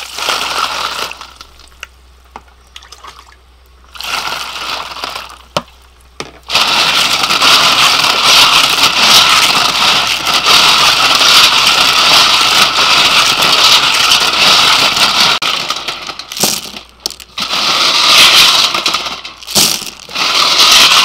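Water poured into a stainless steel bowl of cockles, then hands washing the cockles in the water: the shells scrape, rattle and knock against each other and the bowl in a dense, steady clatter, with a few short pauses near the end.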